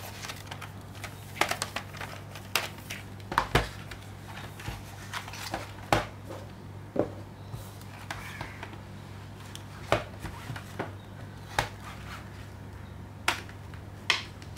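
Irregular sharp clicks and taps of hard plastic as a clear multi-disc Blu-ray case is opened and its discs are handled and pressed on their hubs, over a low steady hum.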